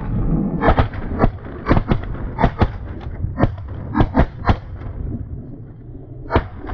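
A rapid volley of shotgun fire from several hunters shooting at once, more than a dozen shots in about four seconds, then a lull and one last shot near the end.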